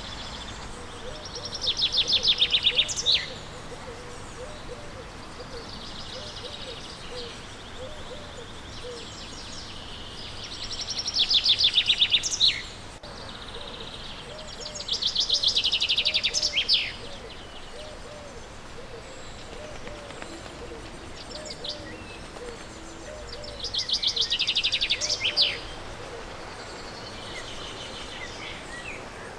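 A songbird singing the same short, rapid trilled phrase over and over, each phrase about two to three seconds long and often ending in a quick falling flourish, with pauses of a few seconds between phrases.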